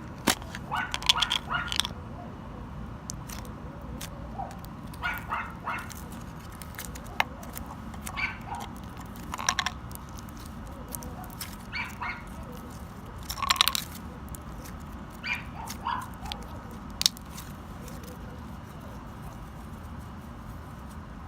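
A dog barking and yelping in short clusters, about half a dozen times, over the crackling and squishing of slime being handled.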